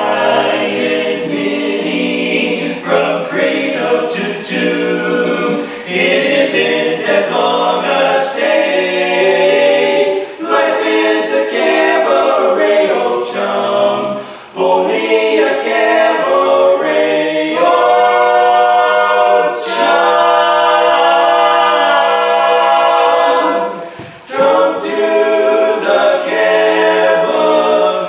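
Men's barbershop quartet singing a cappella: four male voices in close harmony, holding chords in long phrases, with short breaks about fourteen seconds in and again near twenty-four seconds.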